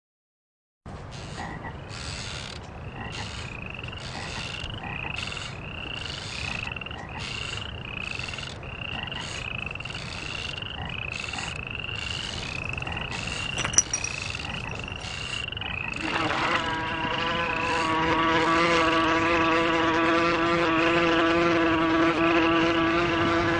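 A night-time chorus of croaking frogs pulses in a steady rhythm, with a sharp click about two-thirds of the way through. Shortly after, a mosquito's buzzing whine comes in close and grows louder, holding one steady pitch.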